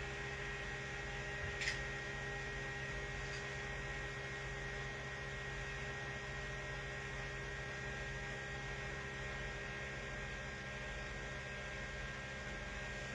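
Steady electrical hum with a faint background hiss, and one short click a little under two seconds in.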